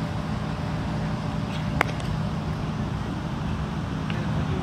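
Steady outdoor background noise with a low hum, and one sharp crack with a short ring just under two seconds in.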